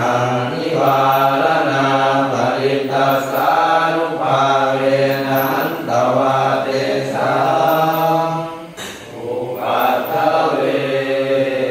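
Thai Buddhist chanting (suat mon): voices reciting on a near-steady low pitch, with a brief pause about nine seconds in.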